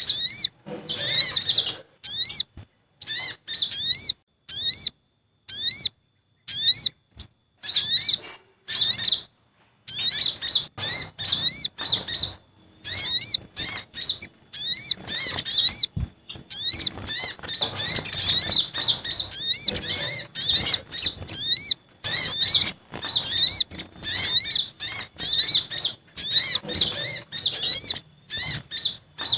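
Sunbird calls from a bird-luring recording that mixes sogon and kolibri ninja calls: fast runs of short, sharp, high chirps, each sweeping upward, broken by brief silent pauses.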